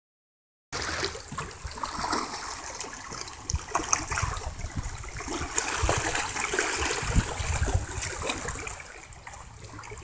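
Storm noise, starting about a second in: rushing, splashing water with many small crackles and scattered low thumps, easing a little near the end.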